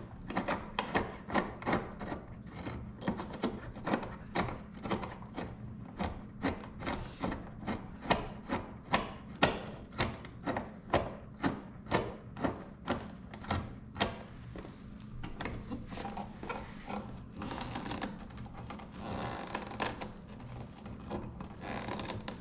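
A hand nutsert (rivet-nut) tool being worked to fit a rivet nut. There is a steady run of light clicks, about two or three a second, for roughly fourteen seconds, then rubbing and scraping.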